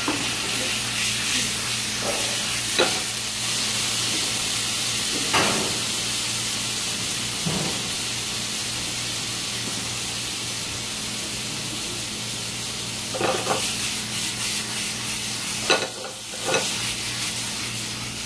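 Kidney beans with chopped onion, leek and cabbage sizzling in a hot frying pan on a gas burner, a wooden spatula stirring and now and then scraping and knocking against the pan. A steady low hum runs underneath.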